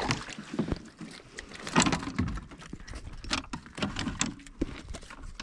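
Irregular clicks and knocks of fishing gear being handled from a kayak as a hooked white bass is reeled in and landed. The loudest knock comes about two seconds in.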